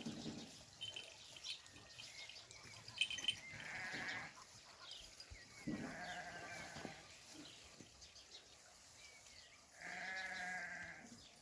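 Sheep bleating: three separate bleats, about four, six and ten seconds in, with faint clicks in between.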